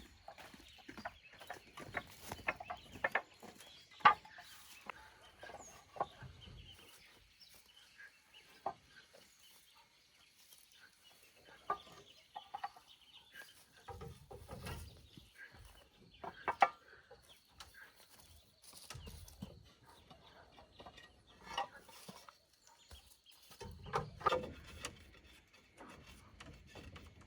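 Scattered short knocks and clicks, the sharpest about four seconds in and again midway, with farm-animal calls in between.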